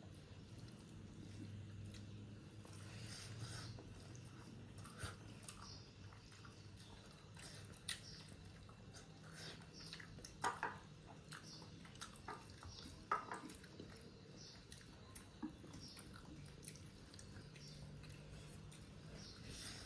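Faint sounds of eating rice by hand: chewing and mouth smacks, with fingers squishing rice on a plate. Scattered short clicks, the loudest a little past the middle, over a low steady hum.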